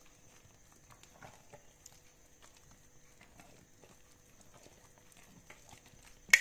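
Silicone spatula stirring thick melted rebatch soap in a pot: soft squelching and small irregular clicks as it scrapes and taps the pot, then one sharp knock near the end, the loudest sound.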